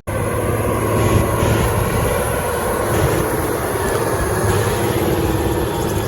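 Case Quadtrac tractor's diesel engine running steadily, a loud, even drone.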